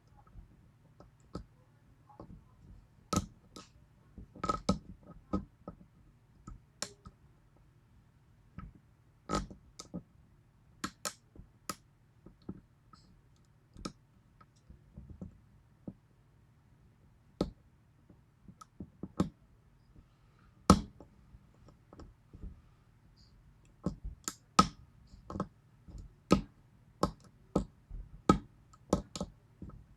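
Picking a 6-pin Yale pin-tumbler lock with spool drivers: irregular sharp metallic clicks of the pick working the pins, some single and some in quick clusters.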